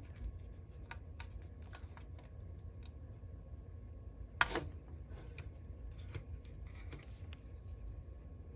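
Scattered small clicks and crackles as a glued-down electrolytic capacitor is rocked by hand and worked loose from a circuit board, with one sharper crack about four and a half seconds in as the old glue gives way. A low steady hum lies under it.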